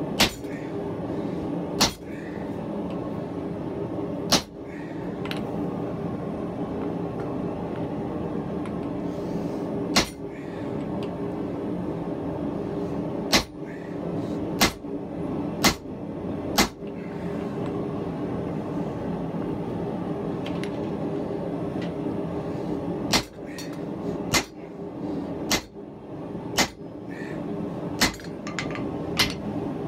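A forge running with a steady low rush, with intermittent sharp metallic clanks of a hammer striking hot steel on the anvil. The clanks come singly at first, then in short runs about a second apart.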